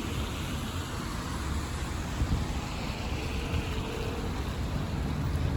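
Road traffic on a wet city street: a steady low rumble of engines with the hiss of tyres on wet pavement, swelling as vehicles pass.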